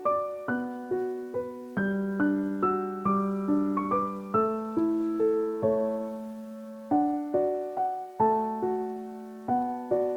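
Background piano music: a gentle, unhurried melody of single notes over a low accompaniment, each note struck and then fading.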